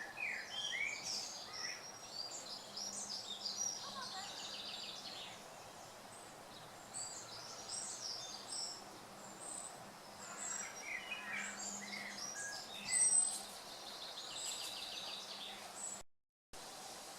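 Several songbirds singing, many short chirps and quick trills, over a faint steady rush of running water from a small stream. The sound cuts out briefly near the end.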